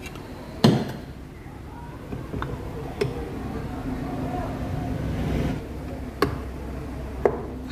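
Sharp metal knocks and clinks as the clutch housing and other engine parts are fitted by hand onto a Bajaj Pulsar 220 engine: four separate knocks, the first the loudest.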